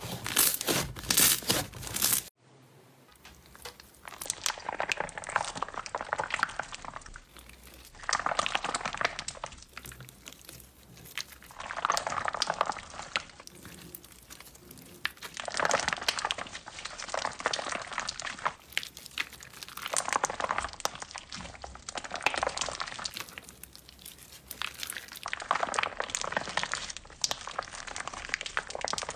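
Clear slime filled with water beads being stretched and squeezed by hand, its sticky crackling and popping coming in bursts every three to four seconds. It opens with a fluffy slime being pressed, which cuts off about two seconds in.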